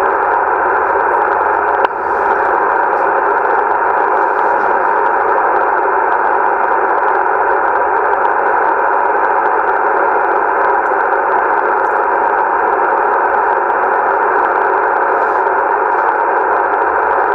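Yaesu FTDX-1200 HF transceiver receiving on 14.270 MHz upper sideband: its speaker gives steady band-noise hiss, cut to the narrow voice range by the receive filter, with no signal on the frequency. A brief click about two seconds in.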